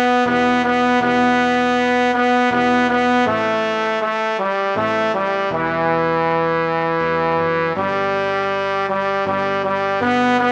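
Part-practice track for a four-part men's chorus arrangement, played by synthesized brass-like tones: sustained chords that move every half second to a second or so, with the second tenor line as the featured part.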